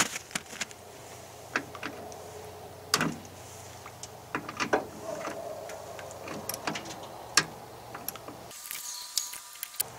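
Scattered sharp clicks and taps of a hand tool working the metal electrical terminals on a truck's firewall, over a faint steady background hum.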